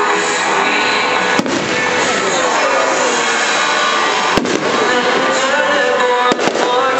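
Fireworks display going off: a dense, continuous hiss and crackle, broken by several sharp bangs, one about a second and a half in and two quick pairs later on.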